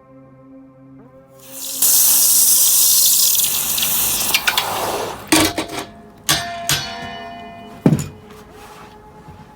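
A loud rush of running water for about three seconds, fading out, followed by four sharp metallic clinks that ring on briefly.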